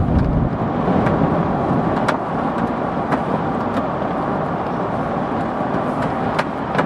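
Road noise inside a car cruising on a highway: a steady rush of tyre and wind noise, with a few short, sharp clicks scattered through it.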